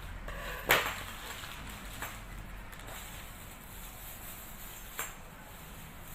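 A sharp knock just under a second in, then two fainter clicks, over a faint low background hum.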